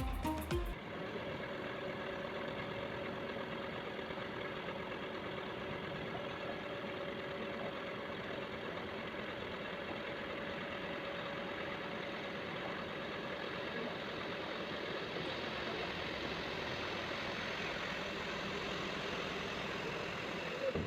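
Combine harvester's diesel engine running steadily at constant speed, a continuous even drone with a few steady tones over it.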